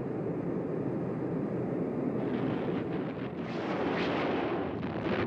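Anti-tank bomblets from a BL-755 cluster bomb going off across a target area: a continuous rumble of overlapping blasts that turns sharper and more crackling from about two seconds in.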